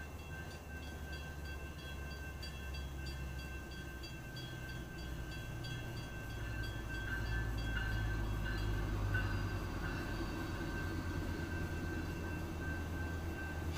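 Railroad crossing bell ringing in a steady rapid ding, about three strokes a second, fading out about halfway through. Then a Metrolink double-deck commuter train rumbles through the grade crossing, its low rumble swelling as it arrives and running on loud to the end.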